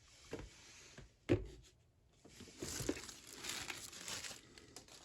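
Handling noise at a workbench: one sharp knock a little over a second in, then about two seconds of rustling and crinkling. The ratchet is no longer being clicked.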